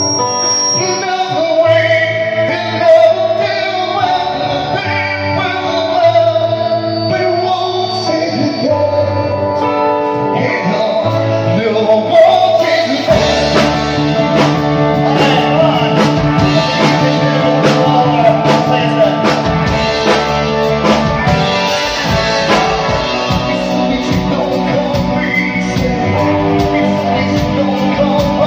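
Live rock band: a man singing into a microphone over electric guitar. About halfway through, drums and a deep low end come in, and the band plays on fuller with a steady beat.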